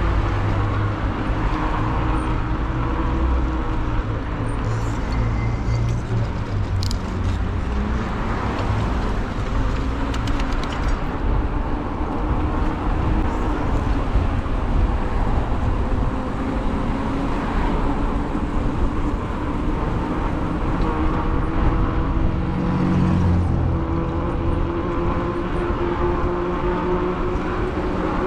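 Street traffic heard from a moving e-bike: cars passing and low wind rumble on the microphone, with a steady hum underneath.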